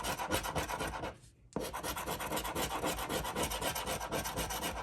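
A scratch-off lottery ticket being scratched with rapid back-and-forth rasping strokes, rubbing off the coating, with a brief pause about a second in.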